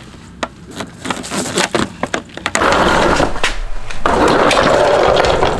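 Shop vac being handled and moved about: a run of knocks and clatters, then from about halfway in, longer stretches of rough scraping noise.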